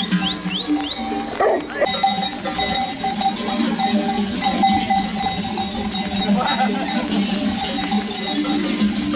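Many livestock bells clanking and jingling together as a large flock of sheep and goats moves past on foot, with an occasional bleat.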